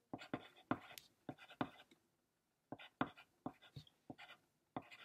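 Writing by hand on a sheet of paper: a pen tip scratching in short, quick strokes, with a brief pause a little after two seconds in.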